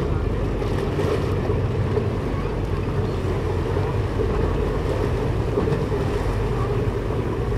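Steady wind on the microphone over water lapping, with a low, even rumble underneath.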